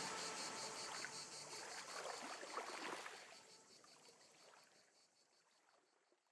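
Closing background music fading out: a noisy wash with a faint, regular pulse that dies away over about six seconds to silence.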